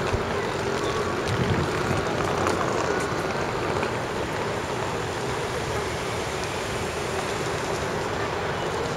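Steady wash of city street noise: a continuous hiss and rumble of traffic, with no single event standing out.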